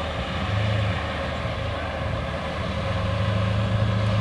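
Off-road race vehicle engines running: a steady low engine drone over a noisy outdoor background, growing a little louder in the last second or so.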